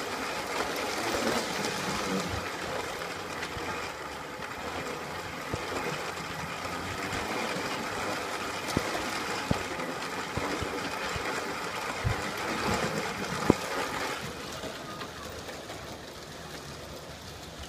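G scale model train running on its track, heard up close from on board: a steady whir of the motor and wheels, with a few sharp clicks. The running sound gets quieter about fourteen seconds in.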